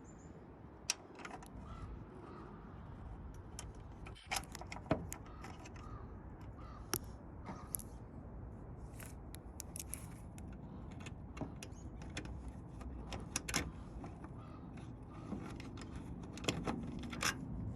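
Scattered light clicks and taps of hands fitting a truck's taillight assembly back into place, over a steady low background rumble.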